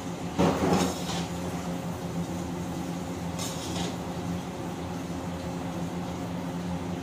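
Steady hum of a commercial kitchen exhaust hood, with a long metal ladle scraping and clanking in a large wok, loudest about half a second in and again briefly near four seconds.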